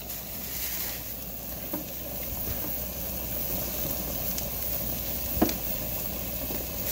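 Steady sizzling hiss of leftovers reheating in a pan on a camp stove, with a few light clicks, the sharpest about five and a half seconds in.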